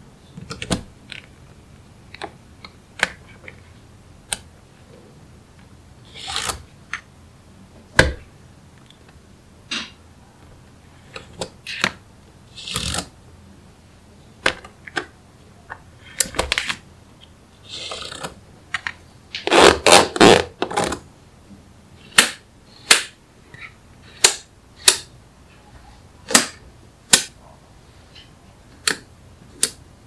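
Small magnetic balls clicking as they snap together, in irregular single sharp clicks with a few short rattling runs, the loudest and densest run about twenty seconds in.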